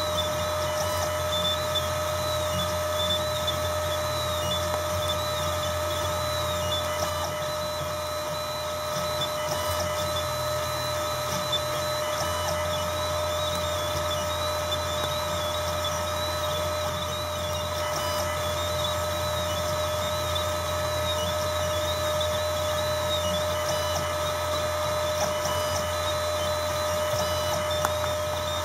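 Desktop 3-axis CNC engraving machine running: a steady motor whine and low hum, with a higher stepper-motor whir that wavers up and down as the axes move.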